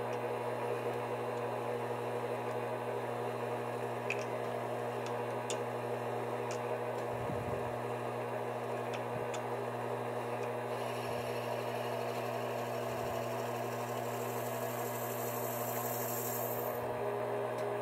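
Mini metal lathe running at about 750 rpm with a steady motor hum and whine while a drill in the tailstock chuck is fed into the spinning workpiece. A higher hiss of the bit cutting joins for about six seconds in the second half.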